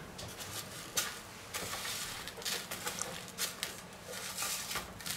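Gloved fingers rolling a soft ball of rum-ball mixture through chocolate sprinkles in a stainless steel tray: faint, irregular rustling and small ticks of the sprinkles on the metal.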